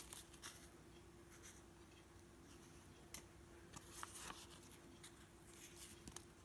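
Near silence, broken by a few faint, short paper rustles as small sheets of stickers and paper ephemera are handled, over a faint steady hum.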